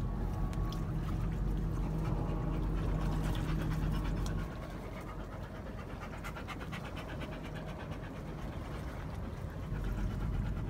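A dog panting steadily inside a vehicle's cabin. A steady low hum runs under it and stops about four seconds in.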